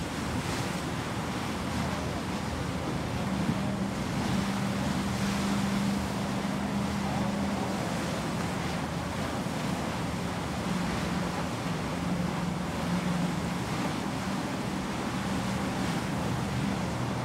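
Wind buffeting the microphone over the rush of sea water at a ship's bow, with a low steady hum that comes and goes from about three seconds in.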